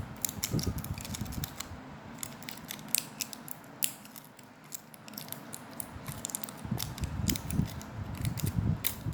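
Many small, irregular plastic clicks and rattles with handling noise, as hands work the plastic parts of a digital scale and its battery packaging.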